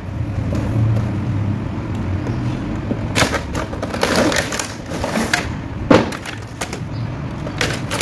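A toy helicopter's cardboard box and clear plastic packaging tray being opened and handled: rustling with a run of sharp plastic crackles and clicks, the sharpest about six seconds in.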